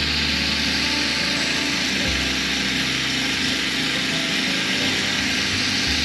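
A steady, loud hiss runs throughout under background music whose low notes change every couple of seconds.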